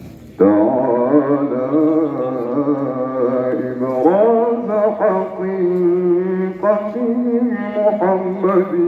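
A man chanting a devotional maulid recitation into a microphone, starting about half a second in. He holds long, wavering melismatic notes, with new phrases beginning about four, five and seven seconds in.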